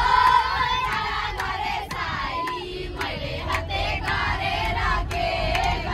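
A group of children's voices shouting and singing together in long, held calls. A few sharp clicks and a low rumble run beneath.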